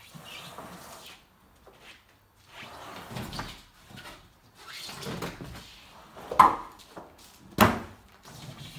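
Heavy rubber horse stall mats being dragged and scraped out of an SUV's cargo area, in several rough sliding bursts. Two loud, sharp thuds come a little over a second apart near the end as a mat drops onto the concrete floor.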